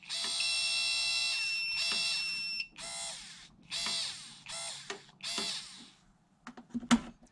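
Freshly cleaned and rebuilt Ford Thunderbird rear power-window electric motor running on the bench. It whines steadily for about two and a half seconds with a high steady tone over it, then gives three short runs, and a few clicks come near the end. It turns freely both ways with no struggle.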